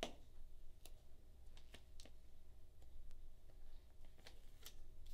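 Faint handling noise of small medical supplies: about six scattered sharp clicks and crinkles of plastic and packaging, the loudest right at the start, over a low steady hum.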